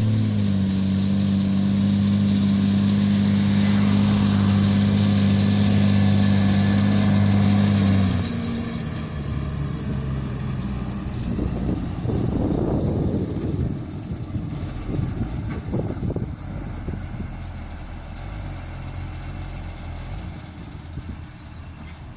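A JCB Fastrac tractor hauling a loaded silage trailer. Its engine drones steadily for the first eight seconds or so, then the drone drops away into an uneven rumbling of the tractor and trailer passing, which swells about twelve seconds in and fades.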